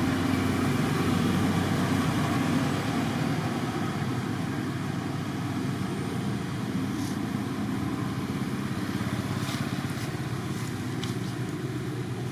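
Steady low rumble of a running motor vehicle engine, easing slightly a few seconds in, with a few faint clicks in the second half.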